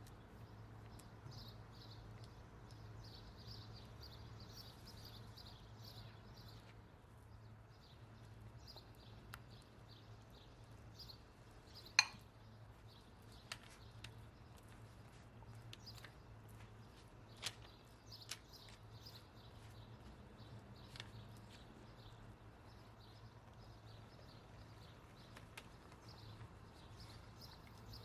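Faint kitchen handling sounds: scattered light clicks and taps, with one sharper click about twelve seconds in, over a low steady hum.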